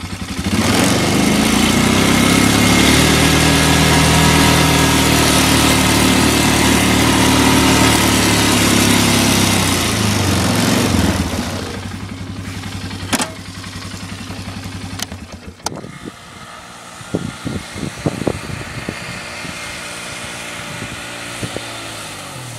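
Polaris 500 ATV engine on Tatou 4S tracks, running hard under load through deep snow, its pitch rising and falling. About eleven seconds in it drops to a quieter, steadier run, with a few sharp knocks.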